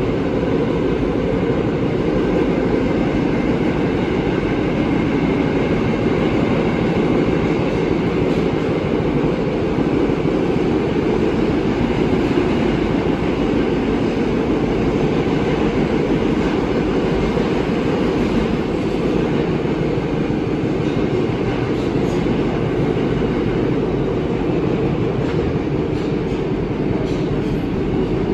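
Inside an R188 subway car in motion: a steady rumble of the wheels and running gear on the rails, with a few faint clicks in the second half.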